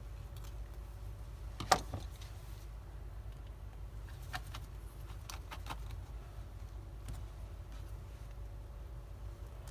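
Small clicks and taps from hand work on an opened Toshiba MQ04 laptop hard drive being reassembled: one sharp click a little under two seconds in, then a few softer ticks, over a low steady hum.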